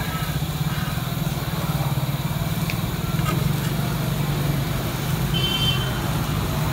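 Steady low rumble like an engine running. Over it come a few light scrapes and taps of a metal spatula spreading topping on a dosa on a flat griddle.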